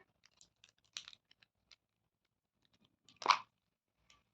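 Plastic packaging being handled: a few faint clicks about a second in, then one short, louder crunch near the end.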